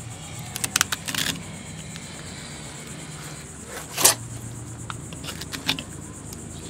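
Fillet knife scraping and cutting along a vermilion snapper on a fiberglass cleaning table. The fish is also handled, giving a few short scrapes and knocks, the loudest about four seconds in, over a steady low background hum.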